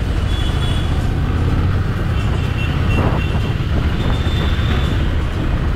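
Harley-Davidson Street Rod 750's V-twin engine running steadily while the motorcycle rides along in traffic, a dense low drone with road noise.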